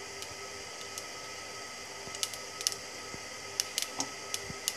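Mustard seeds popping in hot oil in a pan, the first step of a tempering. The pops are scattered and sharp, few at first and more frequent from about two seconds in, over a faint steady hum.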